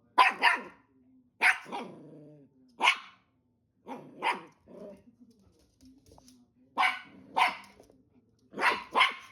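A dog barking: about nine short, sharp barks, some in quick pairs, with pauses of a second or more between them.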